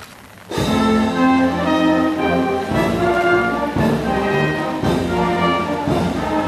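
Music led by brass instruments: after a brief hush it comes in with a loud chord about half a second in, then moves through held chords that change about once a second.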